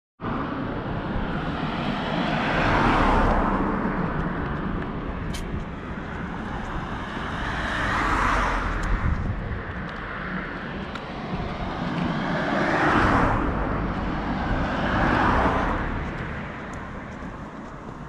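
Cars passing on the road alongside, about four of them, each swelling up and fading away over a couple of seconds, over a steady low rumble.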